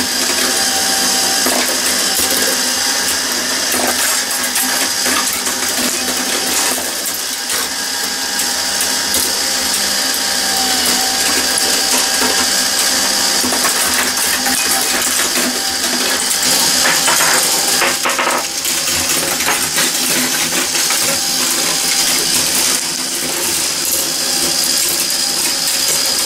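Glass marbles rolling and clattering over the metal parts of a running Meccano marble machine: a dense, continuous metallic rattle of small clicks and clinks.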